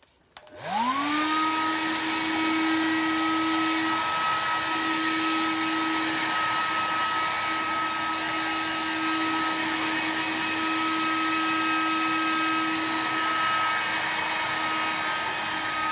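Hand-held hair dryer switched on, its motor spinning up with a rising whine, then running steadily with a hum and a rush of air, blowing on wet black paint to dry it.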